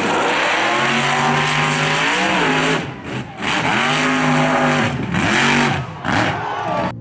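Engine of an open-wheeled dirt-track buggy on large tractor tyres, revving hard in repeated surges. Its pitch climbs, holds and drops several times as the throttle is worked, easing off briefly about three seconds in and again near five and six seconds.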